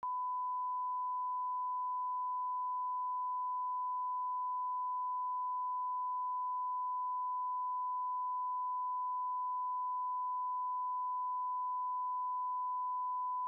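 A single steady pure test tone, the kind of line-up tone played at a TV closedown. It starts abruptly out of silence and holds without change.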